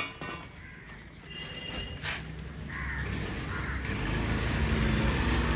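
Crows cawing, with a few sharp clicks at the start and a low rumble that grows louder through the second half, cut off abruptly at the end.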